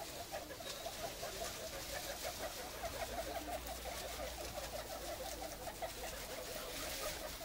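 Guinea pigs chutting: a continuous run of short, low chirping calls, several a second.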